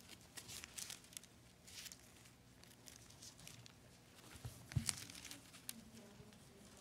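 Bible pages being turned by hand, a faint, irregular paper rustling in short bursts, with a soft thump a little under five seconds in.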